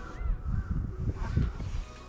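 Uneven low rumbling and knocks of handling noise on a body-worn camera microphone, in the stretch where the rod is let go of and left resting. Under it, birds call in short arched cries.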